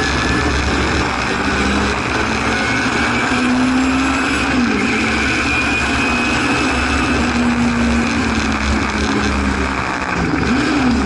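Singer Chamois race car's rear-mounted Hillman Imp four-cylinder engine running hard at high revs, heard from inside the cabin over wind and road noise. The engine note dips briefly about four and a half seconds in and wavers again near the end.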